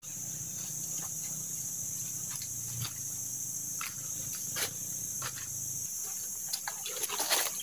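A steady high-pitched drone of insects, with footsteps crunching on dry leaf litter, the crunches coming thicker in the last second or so.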